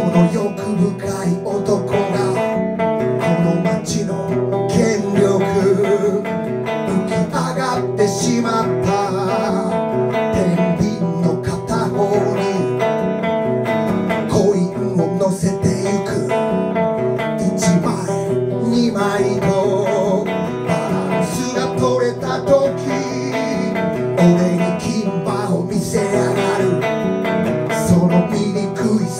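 Live song: a man singing with his own strummed hollow-body electric guitar, played steadily throughout.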